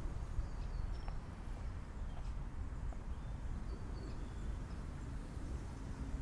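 Mitsubishi Lancer Evo VI's turbocharged 2.0-litre 4G63 four-cylinder idling steadily as it warms up after a cold start, a low even rumble.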